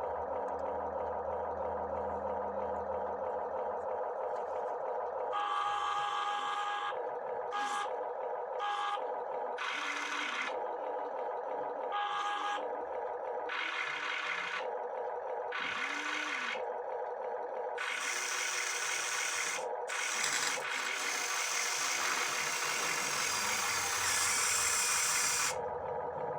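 Toy remote-control excavator running: a steady electric whine throughout, with its motors whirring in short irregular bursts from about five seconds in and a long run near the end.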